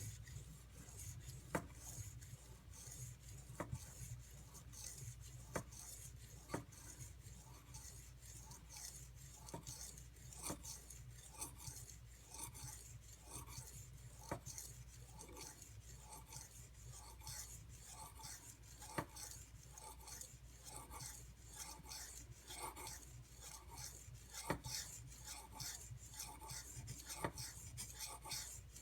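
Knife blade stroked back and forth on a coarse, 320-grit whetstone: faint, rhythmic scraping with a few sharper clicks, the edge being ground toward the apex.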